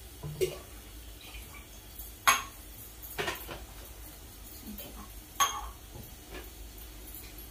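Stainless steel kitchen vessels and tumblers knocking and clinking against each other and the counter as they are handled: four separate knocks, the loudest about two seconds in.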